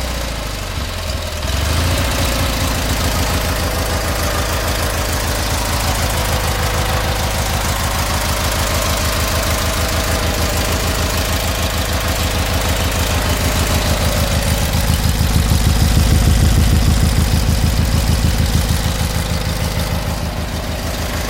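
16 HP Briggs & Stratton 656cc opposed-twin engine running after a tune-up with new head gaskets and spark plugs. It settles down in speed in the first second or two, then runs at a steady, even idle, a little louder around the middle.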